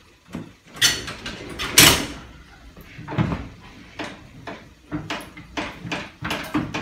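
Signal-box level-crossing gate wheel turned by hand: two loud clanks about one and two seconds in, then its ratchet clicking steadily about three times a second.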